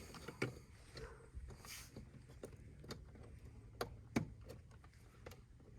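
Scattered faint clicks and small knocks of wire connectors being plugged onto a battery adapter and handled, with two sharper clicks about four seconds in.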